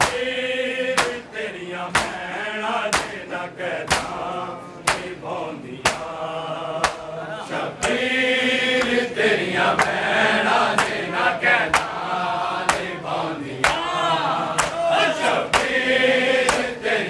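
Men chanting a Shia noha lament over unison chest-beating (matam): sharp hand-on-chest slaps land together at a steady pace of about one a second under the chanting voices.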